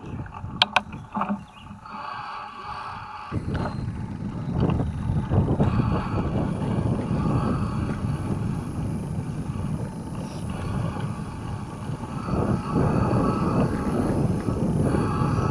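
Mountain-bike tyres rumbling over rough, cracked asphalt with wind buffeting the microphone; a few sharp clicks near the start, then the rumble sets in steadily about three seconds in.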